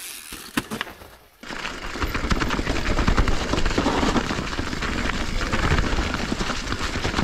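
Mountain bike tyres rolling fast over a carpet of dry fallen leaves and twigs: a dense crackling rattle with a low rumble underneath, picked up by a handlebar-mounted camera. It starts about a second and a half in, after a quiet stretch with a few clicks.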